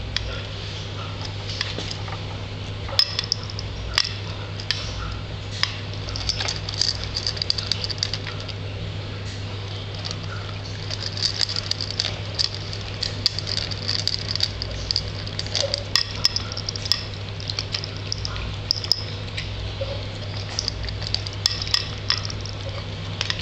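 Himalayan Persian cat eating dry kibble from a bowl: irregular crunching and chewing, with pieces of kibble clinking against the bowl, over a steady low hum.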